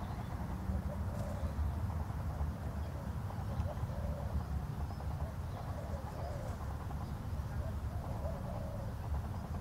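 Outdoor ambience: a steady low rumble with soft, repeated cooing calls in the background.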